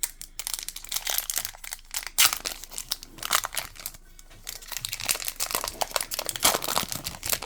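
Trading-card pack wrapper crinkling and tearing as it is opened, in two spells of rustling with a short lull about four seconds in.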